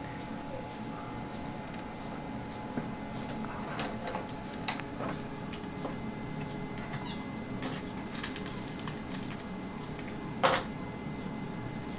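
Steady hum of hospital bedside equipment around a ventilated newborn, with scattered faint clicks and rustles and one short, louder rustle about ten and a half seconds in.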